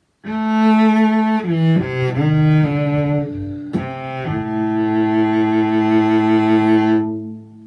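A low bowed string instrument playing a short phrase of a few sustained notes, ending on one long held low note that fades away.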